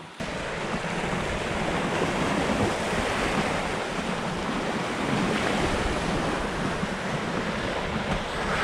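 Wind buffeting the microphone over the steady rush of the sea along a sailing yacht's hull as it runs downwind.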